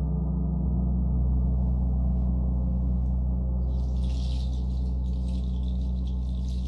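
A large gong resonating with a deep, sustained drone of many steady low tones. About three and a half seconds in, a high shimmering sound joins over it.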